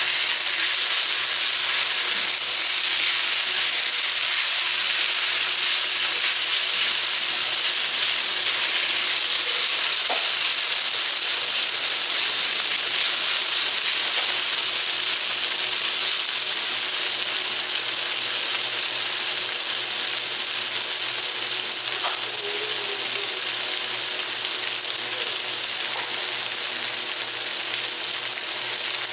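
Cornstarch-coated beef sizzling steadily in a hot nonstick wok, turned now and then with a plastic spatula. The sizzle eases a little near the end.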